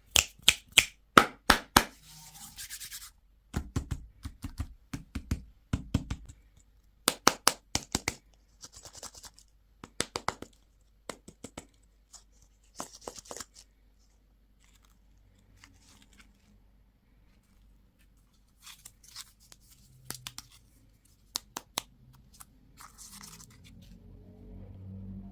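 Hands opening plastic candy and toy packaging: clusters of sharp clicks and short bursts of rustling, with pauses between.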